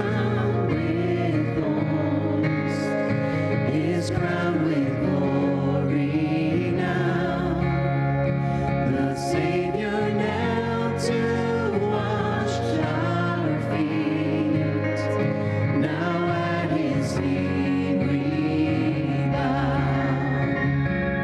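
Live gospel worship music: several singers on microphones singing together over a band with acoustic guitar and drums.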